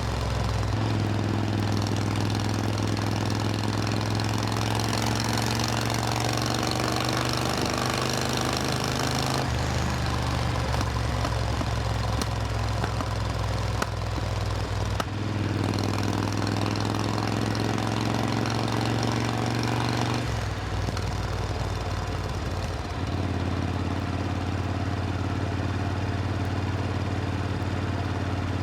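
Supercharged Triumph Thunderbird Storm's parallel-twin engine running, its note holding steady and then stepping abruptly to a new pitch several times.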